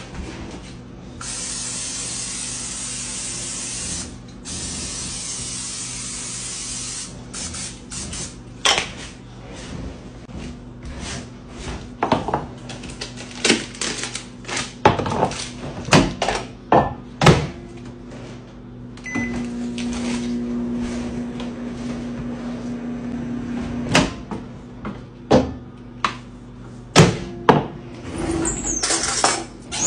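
Kitchen handling sounds: a steady hiss for several seconds, then a string of knocks and clatters on the counter. A microwave oven then hums for about five seconds, melting butter in a bowl, and stops with a sharp click.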